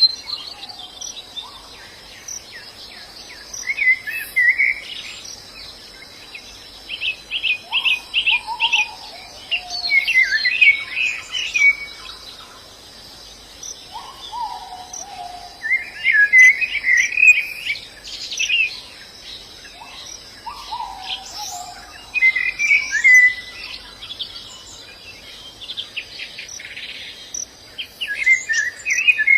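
Pleci (white-eye) birds chirping and twittering in short bursts of quick high notes and trills, over a steady high insect drone. A lower, falling call sounds three times.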